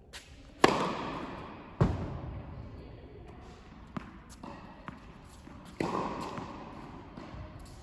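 Tennis serve in a large indoor hall: the racket strikes the ball with a sharp crack under a second in, followed about a second later by a heavier thud as the ball lands, each trailing a long echoing ring. A few light ball-bounce taps follow, then another loud ringing hit near the end.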